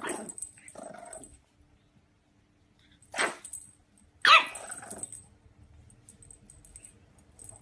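French bulldog puppy barking: a few short barks, the loudest a little over four seconds in.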